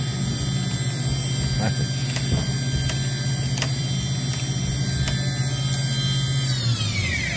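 Hitachi VS40 machining center's spindle running at 8,000 RPM with a steady high whine of several tones over a low hum, then spinning down about six and a half seconds in, every tone falling in pitch together as it is stopped. It has a freshly installed top tapered roller bearing being broken in, and it sounds good to the operator.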